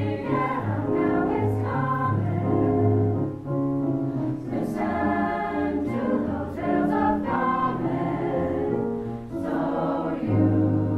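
Mixed choir of teenage girls' and boys' voices singing in harmony, with held low notes under moving upper parts and crisp consonants cutting through.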